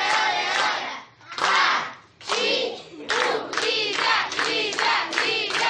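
A group of children shouting and cheering together in quick rhythmic bursts, with hand clapping.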